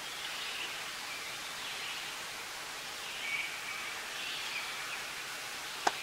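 Woodland ambience: songbirds singing now and then over a steady rushing hiss, with one sharp click near the end.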